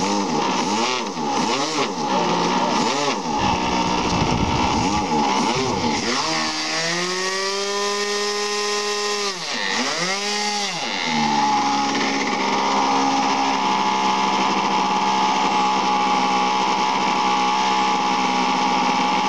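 Model airplane engine on an RC aerobatic plane revving up and down in quick swells. It is then held at full throttle for about three seconds with the plane pointed nose-up, the usual check that the mixture does not go lean. The revs dip and recover once, then settle at a steady lower speed.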